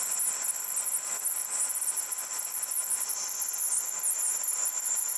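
Manual Colchester lathe running with a cutting tool turning a Delrin part: a steady machine hum under a high, wavering hiss from the cut.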